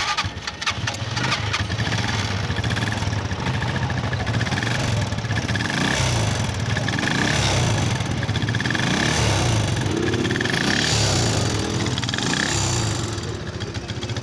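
Motorcycle engine starting: a quick rattle of clicks as it catches, then it runs steadily, rising and falling in pitch a few times as it is revved lightly.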